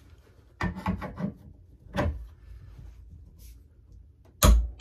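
Metal hand tools clicking and knocking as a torque wrench and a barrel nut wrench are handled and fitted onto an AR-10 barrel nut: a few sharp clicks early on, one more near two seconds, and a heavy knock near the end.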